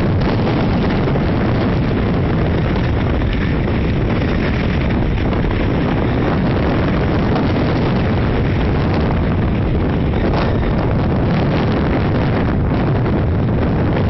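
Strong typhoon wind blowing across the microphone: loud, steady rushing and rumbling wind noise.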